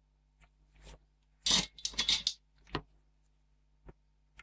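Hand tools clattering against a hard surface, then sharp snips of flush side cutters trimming a soldered component lead on a circuit board.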